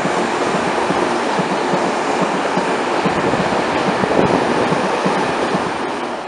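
Berlin U-Bahn train running past close by, a steady rush of wheel and rail noise with repeated knocks from the wheels. It fades as the last car goes by near the end.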